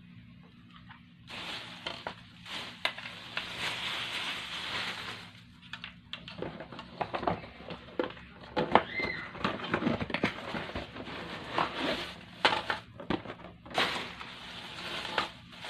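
Packaging being handled: plastic wrapping crinkling and rustling, with cardboard box parts sliding and many small taps and knocks, starting about a second in.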